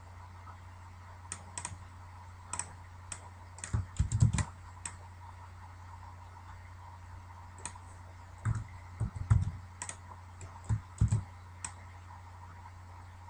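Irregular computer keyboard and mouse clicks as shapes are copied and moved on screen, with a few dull knocks among them; the loudest cluster comes about four seconds in and another around nine seconds. A steady low hum runs underneath.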